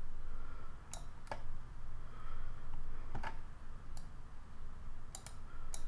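Computer mouse clicking, about seven sharp clicks at irregular intervals, some in quick pairs.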